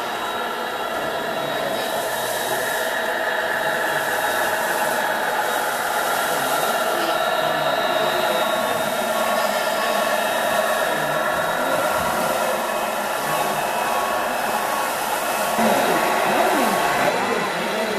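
Scale RC model trucks running: a steady whirring drone with several held tones, as from electric drives and the engine sound of truck sound modules. A repeated beep at one pitch joins about halfway through.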